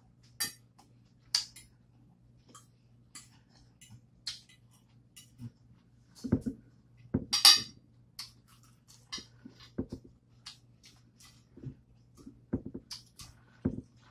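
Cutlery clinking and tapping against dishes: irregular light clinks and knocks, the loudest about halfway through.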